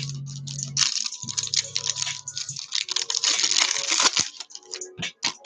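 Crinkling and rustling of foil trading-card pack wrappers and cards being handled: a dense patter of small crackles and clicks, heaviest from about one to four seconds in, then a few separate clicks.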